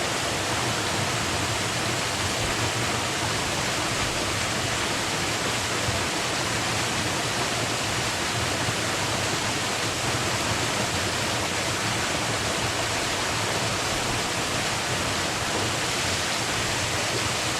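Waterfall pouring into a pool: a steady, unbroken rush of water.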